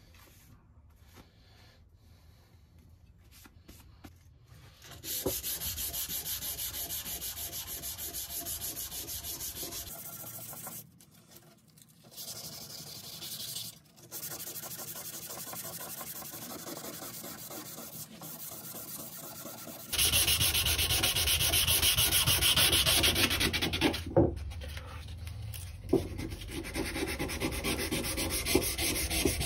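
Sanding on a vintage draw knife: a steady scraping that starts about five seconds in, pauses briefly twice, and gets louder in the last third, with a couple of light knocks near the end.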